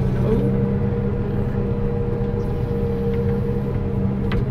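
Combine harvester engine running at a steady speed, heard from inside the cab: a steady drone with several held low tones.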